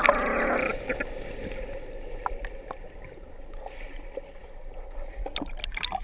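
Stream water heard by a waterproof action camera dipped underwater. It starts with loud bubbling and churning for under a second, then settles to quieter sloshing and gurgling with a few sharp clicks of water against the housing, more of them near the end as the camera breaks the surface.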